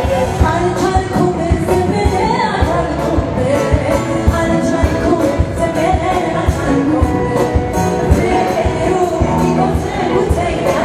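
Ethiopian gospel song (mezmur): a singer over a band of keyboard and electric guitar, with a steady drum beat.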